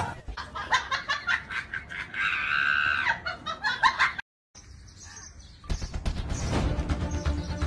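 Comic sound effect: a scream over rapid choppy pulses, cut off suddenly about four seconds in, then background music starts near six seconds.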